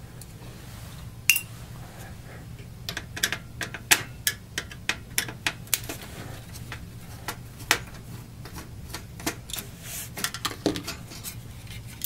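Light, irregular plastic and metal clicks and rattles, several a second, as the controller-port block of an opened Sony PlayStation 1 is worked loose and lifted out, with a sharp click about a second in. The rattle comes from broken plastic tabs loose inside the console.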